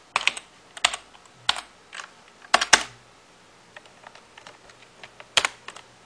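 Computer keyboard keystrokes at an irregular pace: several loud key presses in the first three seconds, lighter tapping after that, and one more loud key press near the end.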